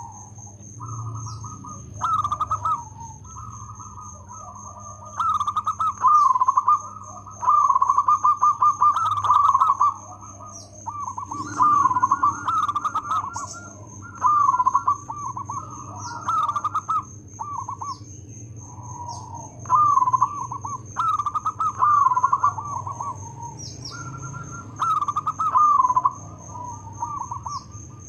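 Zebra dove (local perkutut) singing steadily: a long run of rippling, trilled cooing phrases, each about one to two seconds long, with short gaps between. A faint steady high-pitched tone and a few short high chirps sound behind it.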